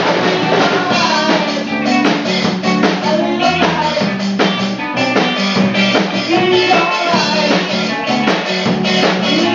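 A rock band playing live: distorted-free electric guitar and a drum kit keeping a steady beat, loud and continuous.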